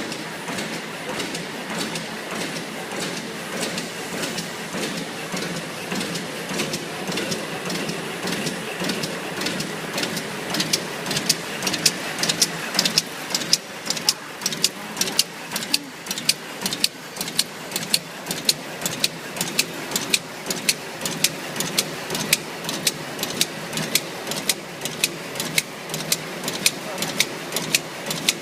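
A cutting-and-sealing machine running with a steady mechanical noise. From about ten seconds in, a sharp click sounds about twice a second, the regular beat of its cutting and sealing strokes.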